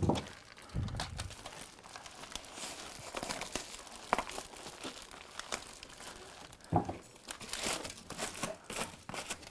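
Foil tape and foil-faced duct insulation crinkling and crackling as they are handled, with a piece of tape being pulled and torn off, and a few soft knocks.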